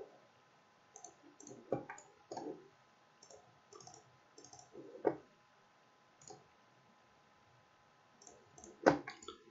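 Computer mouse clicking now and then, faint, with one sharper click near the end.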